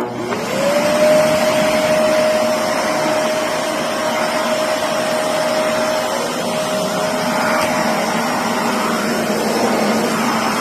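Samsung PowerMotion 2100 vacuum cleaner switched on: the motor whine rises quickly over about the first second, then runs steadily with a strong rush of air.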